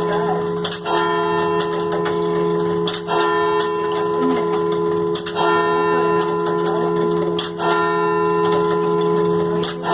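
Church bell struck by a tower clock's hammer counting the hour: five strokes about two seconds apart, each ringing on with a long hum into the next. Only the hour strike sounds; the quarter chimes are disengaged.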